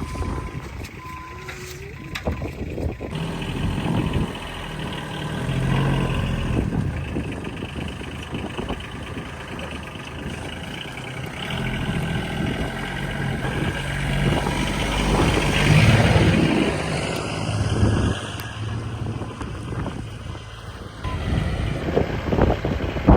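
Farm machine engine running steadily, its level swelling and easing as it works, with a few short beeps in the first couple of seconds.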